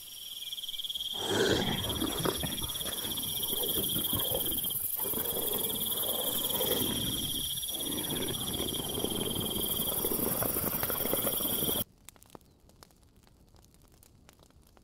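Jungle ambience: high, steady insect trilling over a lower rumbling noise. It cuts off suddenly near the end, leaving only a faint crackle.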